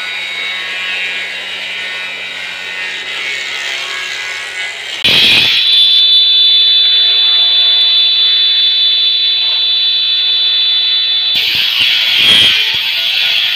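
Belt-driven multi-blade circular rip saw running. From about five seconds in it gives a loud, steady high-pitched whine, which near the end gives way to a rougher, noisier sound as wood strips are fed through the blades. Before that there is a quieter steady machine hum.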